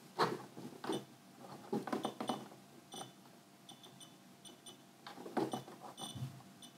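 Faint clicks and taps of a hand working the controls of a signal generator. From about two seconds in there are short, faint, high-pitched beeps in small groups.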